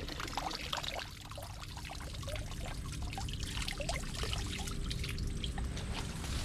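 Water trickling and splashing, an irregular spatter of small drops and splashes over a low rumble.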